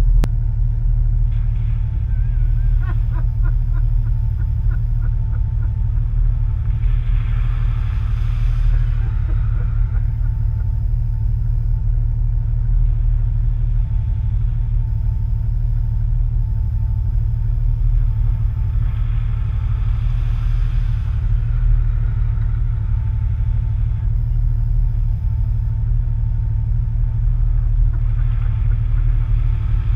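Side-by-side UTV engine idling with a steady low rumble. A rushing hiss swells up and fades three times over it.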